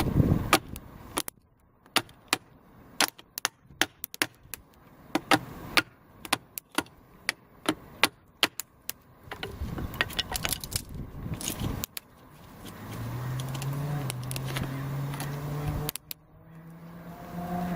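Rapid, irregular sharp cracks and knocks of wood, in kindling being split with a folding knife blade, for about the first nine seconds. From about twelve seconds in a steady engine hum comes in and rises a step in pitch a couple of seconds later.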